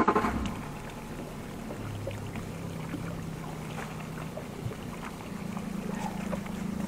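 Outboard motor idling with a steady low hum, its pitch stepping slightly a few times. Faint rustles and small knocks of a jacket being handled sit over it.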